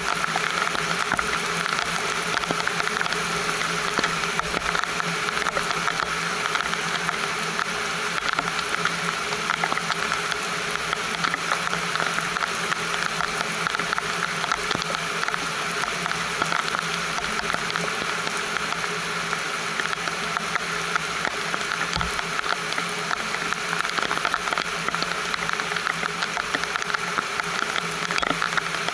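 Steady rain falling: a dense, even hiss dotted with the tap of individual drops.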